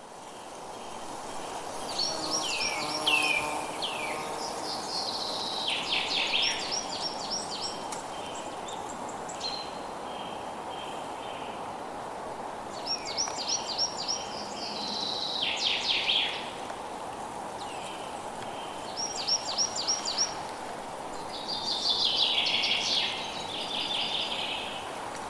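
Forest ambience: a songbird sings repeated phrases of quick, high, descending chirps five times, over a steady background hiss and a faint insect drone. It fades in over the first two seconds.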